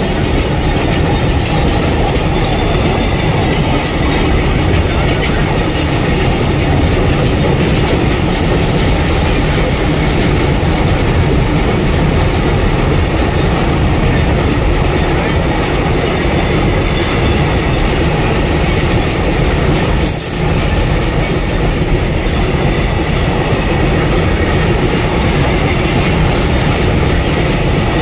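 Indian Railways goods train of open-top steel box wagons rolling past close by: a steady, loud rumble and rattle of wheels on the rails, with brief high-pitched wheel squeals a few times.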